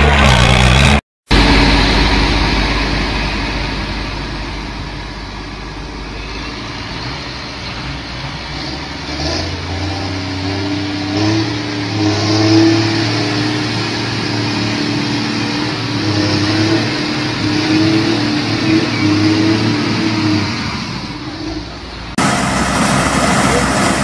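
Diesel engines of large farm tractors running hard in a tug-of-war pull, a steady low engine drone with a higher hum above it. The sound drops out briefly about a second in and changes abruptly near the end.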